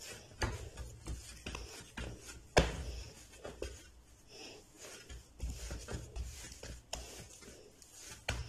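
Hands kneading a soft mashed-potato and semolina dough on a stainless steel plate: irregular soft thumps and rubbing as the dough is pressed and folded, with one sharper knock about two and a half seconds in.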